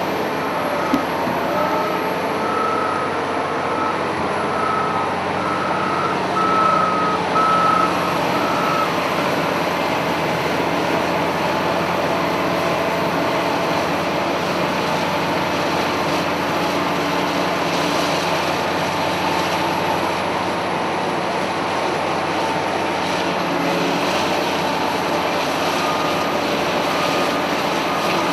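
Cat 992K wheel loader's diesel engine running steadily under work. Its reversing alarm beeps at a regular pace for the first several seconds and comes back faintly near the end.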